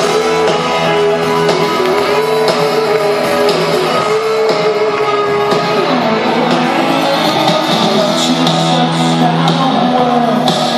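Live rock band playing loud, with electric guitar carrying a sustained melodic line over the band, as heard from the audience in a large hall.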